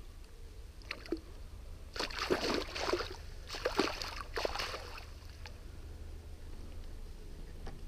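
A chub thrashing and splashing in a landing net held in shallow river water, a flurry of splashes lasting about three seconds.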